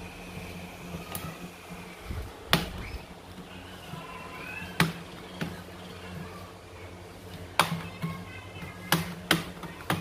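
Asus X502CA laptop keys and touchpad being pressed: about seven sharp, irregularly spaced clicks over a faint steady hum.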